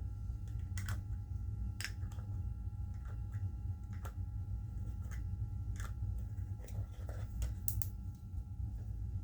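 Scattered soft clicks and taps from small objects being handled by hand, irregular and about one every second or so, over a steady low hum.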